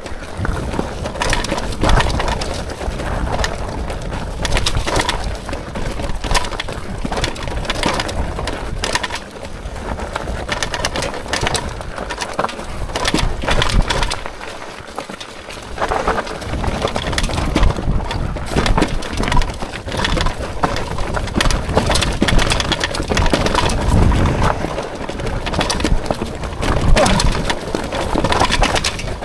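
Hitway BK10S folding fat-tyre e-bike riding down a rough, rocky descent: tyres crunching over stones and the bike clattering with many irregular knocks and rattles over a constant low rumble.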